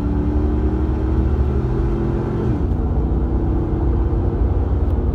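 Pickup truck driving, heard from inside the cab: a steady low rumble of engine and road noise, its pitch shifting about halfway through.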